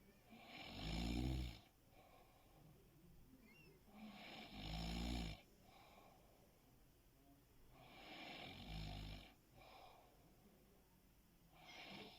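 A sleeping person snoring: three long snores about four seconds apart, each building up and then stopping abruptly, with a fourth starting at the very end.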